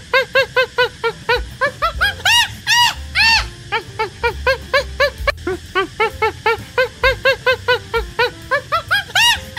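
A monkey's rapid chattering: a long string of short yelping calls, about four a second, each rising then falling in pitch. A few louder, higher calls come about two to three seconds in and again near the end.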